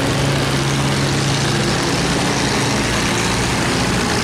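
Boat engine running steadily at a low pitch, over the rush of turbulent water churning through a sluice gate.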